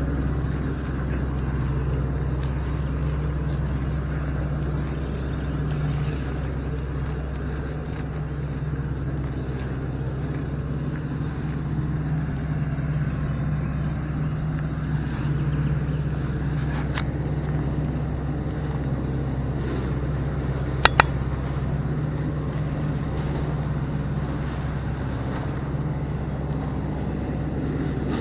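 An engine running steadily at constant speed, a low even hum, with two sharp clicks about two-thirds of the way through.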